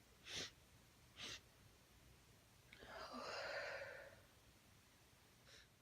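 A woman's short, quick breaths through the nose, twice, then a long breathy sigh about three seconds in. It is a nasal tickle building toward a sneeze after sniffing chhinkni sneezing powder.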